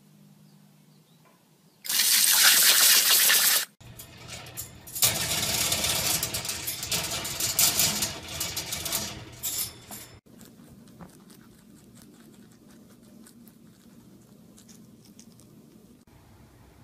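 A garden hose spray nozzle blasts a jet of water for about two seconds, loud and hissing. After a cut, several seconds of loud rattling and scuffling come from an animal in a wire cage, then it goes quiet.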